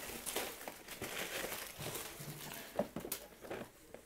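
Plastic blister-pack toy packaging and packing paper rustling and crinkling as carded action figures are handled in a cardboard box, with a few light clicks about three seconds in.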